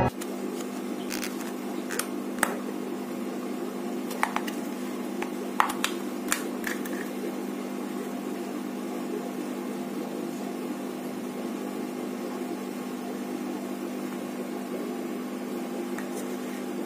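A steady low electrical hum fills the room, with a handful of light plastic clicks and taps in the first several seconds and once near the end as a small plastic cup and tub are handled.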